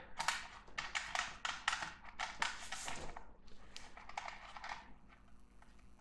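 Rustling and small clicks of stranded copper speaker cable being handled and pushed into a loudspeaker's metal binding-post terminals. The clicks come thick for about the first three seconds, then thin out and fade.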